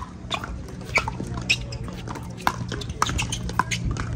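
Pickleball paddles striking a hard plastic ball in a rally: a string of sharp pops, one every half second to a second.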